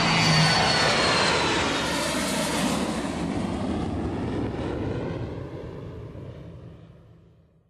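Jet airliner sound effect: the rushing noise of a passing plane with a faint, slowly falling whine, fading out to silence over about seven seconds. The band's last chord stops about half a second in.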